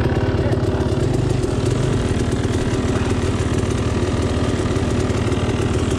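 Dirt bike engine idling steadily, with an even, unchanging beat.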